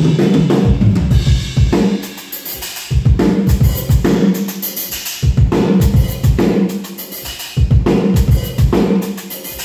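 Heavy metal drumming on a drum kit: fast bass-drum runs with snare hits and cymbal crashes, played in repeating phrases about every second and a half, stopping at the end.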